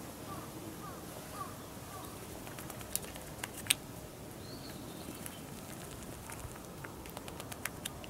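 Quiet outdoor background with a scatter of sharp, short clicks, the loudest about three seconds in, and one faint high chirp a little after four seconds in.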